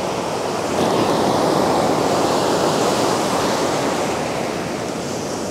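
Ocean surf washing up a sandy beach; a wave surges louder about a second in and then eases off.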